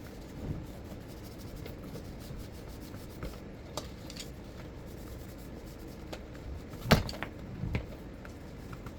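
Handling noise from the blender's parts: rubbing with scattered small clicks, and a loud knock about seven seconds in followed by a smaller one.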